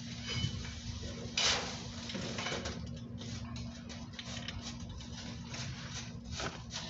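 Small strobe fireworks going off: a short hiss about a second and a half in, then a run of irregular light pops and crackles.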